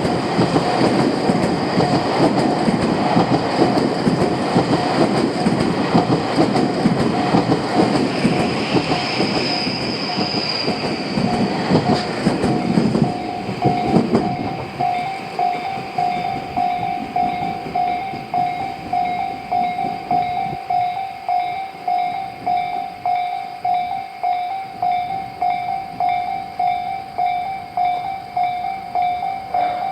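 A train rumbles and clatters past over the level crossing for about the first fourteen seconds, with a brief high squeal near ten seconds. Through it and on after it has gone, the Japanese level-crossing warning bell rings in a steady, regular clang, the crossing still closed.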